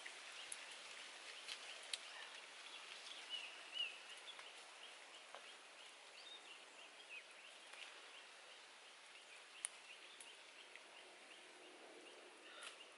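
Faint outdoor ambience of small birds chirping repeatedly in the background, with a few sharp, isolated clicks.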